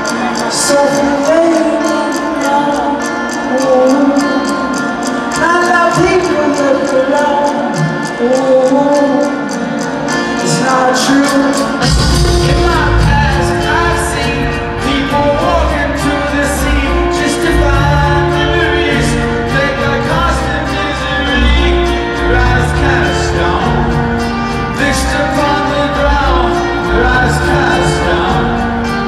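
Live rock band heard from far back in a large stadium: a sung melody over guitar, with the bass and drums coming in about twelve seconds in and the sound filling out.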